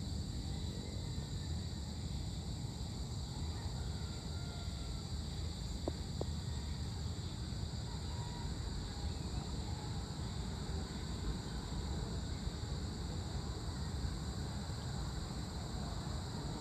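Outdoor evening ambience: a steady high chirring of insects, likely crickets, over a constant low rumble, with a few faint bird calls.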